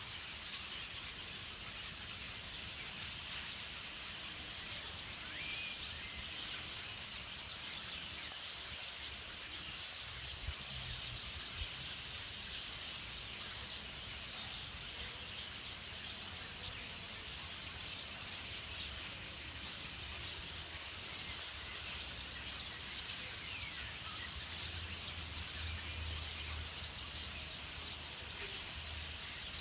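Many small birds chirping and twittering at once, a dense continuous chatter of short high calls.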